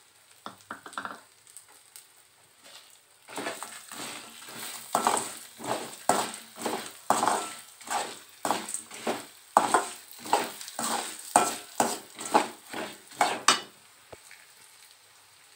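A steel spatula scrapes and stirs toor dal, dried red chillies and coriander seeds around an aluminium kadai as they are dry-sautéed in a little oil. The strokes come about two a second and stop shortly before the end.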